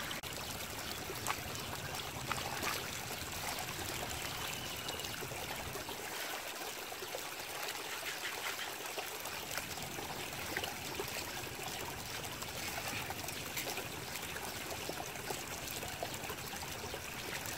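Shallow water trickling steadily through a cut in a mud bank, with small scattered clicks and splashes from hands working in the wet mud.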